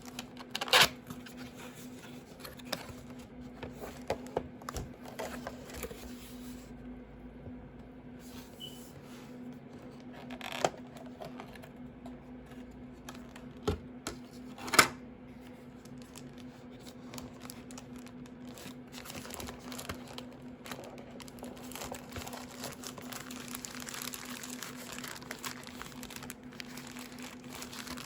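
Keyboard packaging being unwrapped and handled: crinkling wrapping, with a few sharp knocks and taps of the box and its contents. The crinkling grows busier in the second half.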